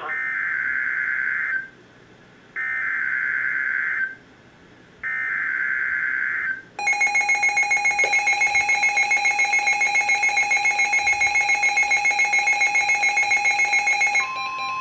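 Emergency Alert System SAME header on a NOAA Weather Radio broadcast: three identical bursts of screeching data tones, each about a second and a half long, followed by a loud, steady electronic attention tone with a fast pulse that changes in pitch just before the end. It signals the start of a new alert, here a severe thunderstorm warning.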